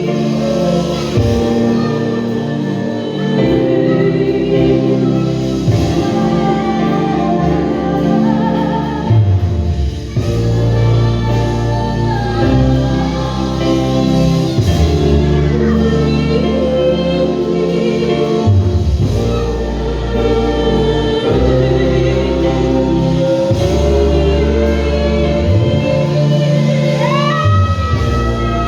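Live church worship music: singing over sustained chords and deep bass notes that change every second or two, with a sliding, rising note near the end.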